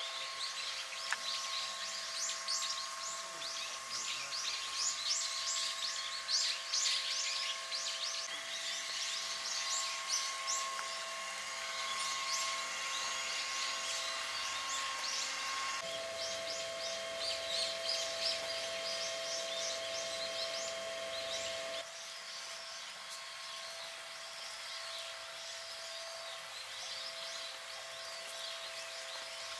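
Many small birds chirping in a dense, rapid chatter, with a faint steady hum underneath.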